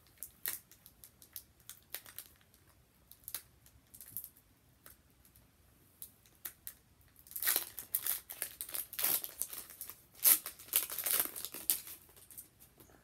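Foil Pokémon card booster pack being handled and torn open: scattered light crinkles at first, then a run of louder crinkling and tearing of the wrapper for the last few seconds.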